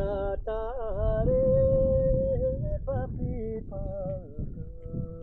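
A high voice singing a slow, wavering melody with a long held note, over a low rumble.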